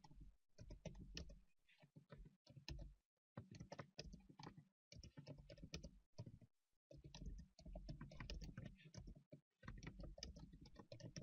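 Computer keyboard being typed on: quick runs of key clicks broken by short pauses.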